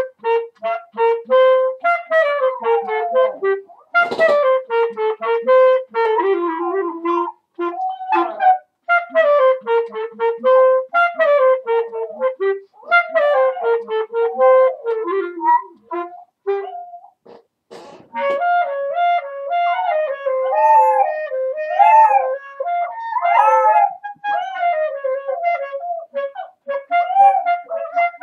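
A clarinet playing a melody, note after note in phrases separated by short breaths, with one longer pause of about two seconds a little past the middle.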